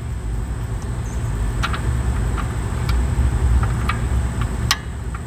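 A steady low rumble, with a few light metal clicks as the spindle washer is slid off the front wheel spindle of a drum-brake hub.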